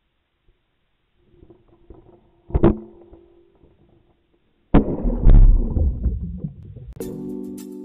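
A single sharp knock, then a sudden loud rush of churning seawater with a deep rumble as the action camera is swamped and pulled under, fading over a couple of seconds. Music with mallet-percussion tones comes in near the end.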